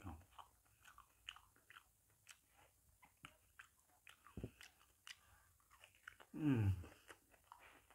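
Close mouth sounds of a man eating ripe honey jackfruit: soft, irregular wet chewing smacks and clicks, with one short falling hum from his voice about six and a half seconds in.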